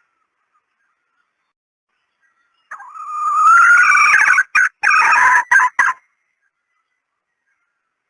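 Red junglefowl hen calling, a lure call: one loud drawn-out call of about three seconds, rising at the start and broken by a few short gaps near its end.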